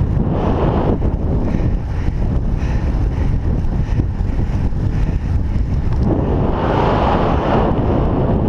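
Wind buffeting the microphone of a camera carried on a moving bicycle: a steady loud low rumble, with a brighter rush about six seconds in.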